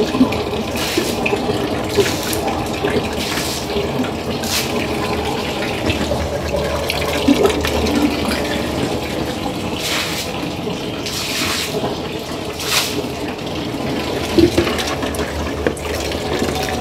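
Water running and splashing during household cleaning, with short swishes now and then.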